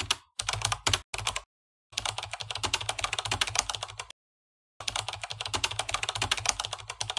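Rapid keyboard typing clicks in bursts with short pauses between them, a typing sound effect laid under text appearing on screen.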